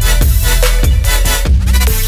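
Electronic dance music with a heavy bass and a steady beat, about two beats a second.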